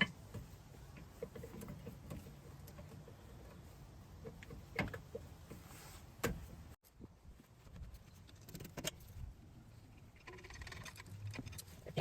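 Brake pads and caliper parts being handled: a few scattered light metallic clicks and knocks over a faint low hum.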